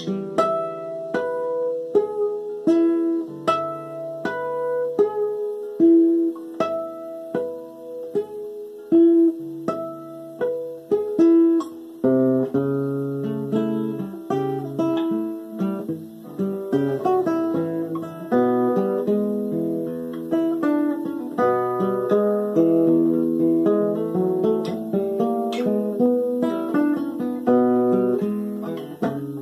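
Solo acoustic guitar, fingerpicked in a blues style with a steady, repeating bass line under plucked melody notes. The playing gets busier, with more notes packed together, from about halfway through.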